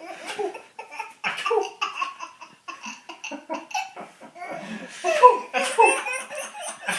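Laughter in short repeated bursts, loudest a little after five seconds in.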